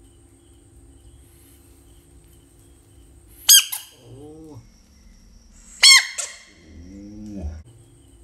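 Frog giving two short, shrill screams about two and a half seconds apart, each followed by a lower, wavering call. A faint steady chirring of crickets runs underneath.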